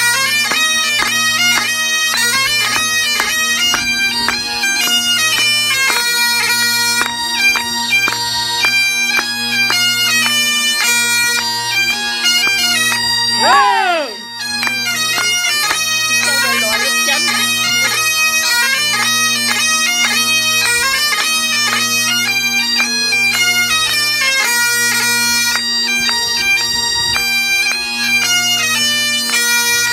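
Two sets of Great Highland bagpipes played together: steady drones under a chanter melody of quick stepping notes. About halfway through there is a brief downward slide in pitch and a short dip in level before the tune carries on.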